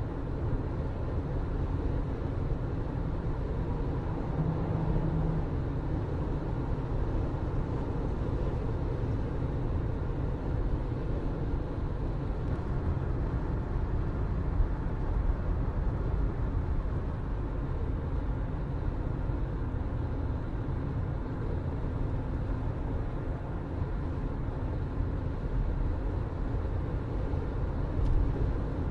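Steady low rumble of a moving vehicle, as of road and engine noise, with no speech over it.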